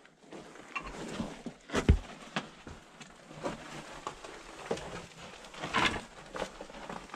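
Footsteps crunching and scuffing on loose rock and gravel, irregular, with a heavier thud about two seconds in.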